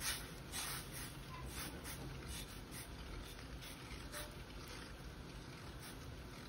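Silicone spatula stirring sugar into liquid in a nonstick pan: a faint series of soft scraping strokes against the pan bottom.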